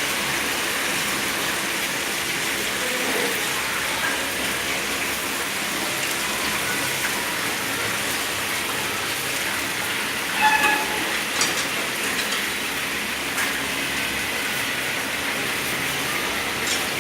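Fish frying in hot oil with a steady sizzle. A short, sharp, pitched sound about ten and a half seconds in is the loudest moment.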